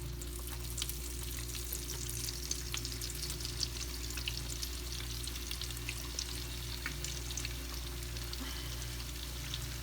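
Hot oil in a deep fryer sizzling and crackling steadily, with many small irregular pops, over a low steady hum.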